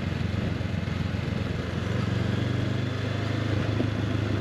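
Honda CB500X's parallel-twin engine running at a steady pace while riding, under a steady rush of wind and road noise.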